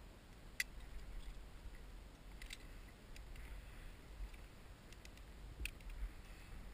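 Climbing carabiners and hardware clicking and clinking as rope is clipped into a rappel anchor: about three sharp clicks with lighter ticks between them. A low wind rumble runs underneath.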